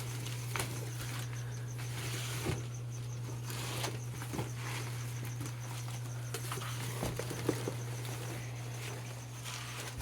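Shipping box and its packing being handled: scattered rustling and light clicks and knocks over a steady low hum.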